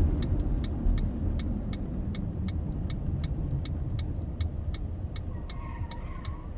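Ford Focus diesel heard from inside the cabin while turning, its engine and road rumble easing off as the car slows. A turn-signal indicator ticks steadily about three times a second throughout. A brief, faint tyre squeak comes near the end of the turn.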